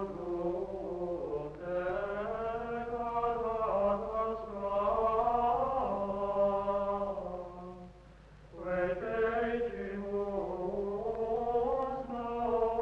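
Voices singing a slow chant in long held, gliding phrases, with a short break for breath about eight seconds in.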